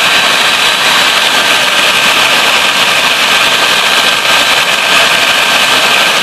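Electric mixer running steadily, beating eggs for sponge cake batter.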